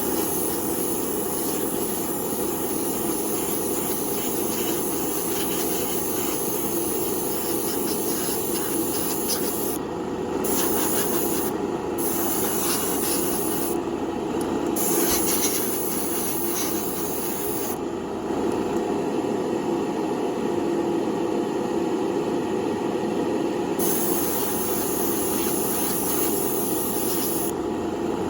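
Paint sprayer applying a coat of paint, its high spray hiss starting and stopping several times over a steady compressor hum.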